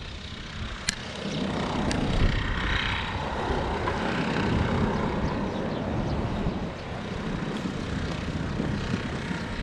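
Gusting wind rumbling on the microphone, a steady low buffeting that swells about a second and a half in and stays up.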